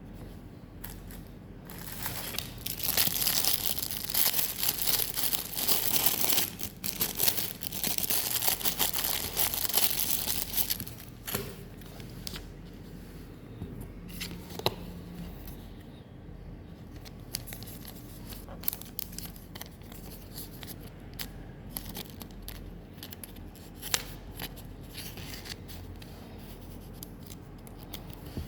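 Foil wrapper of a Pokémon card booster pack being torn open and crinkled for several seconds, then quieter rustling and scattered light clicks.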